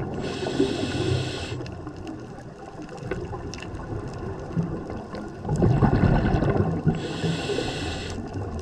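A scuba diver breathing through a regulator underwater: a hissing inhale of about a second near the start, a low rumble of exhaled bubbles a little past the middle, then another hissing inhale near the end. Faint scattered clicks run underneath.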